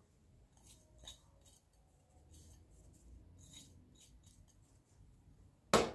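Faint scraping and rustling from baking ingredients and utensils being handled while shortbread dough is made, with one louder knock near the end.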